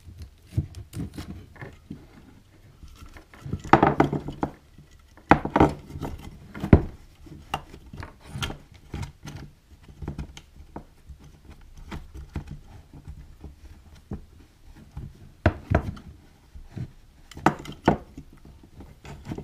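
Handling noises as a cable gland cap and a metal electrical box are worked onto a rubber-jacketed cord: scattered clicks, knocks and light metal rattles, the sharpest knock about seven seconds in.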